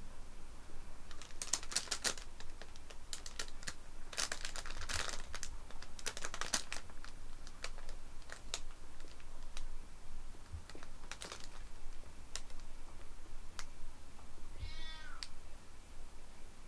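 Crinkly nylon cat tunnel rustling and crackling in clusters of rapid little clicks as a cat shifts about inside it, then scattered single crackles. A short, high cat meow near the end.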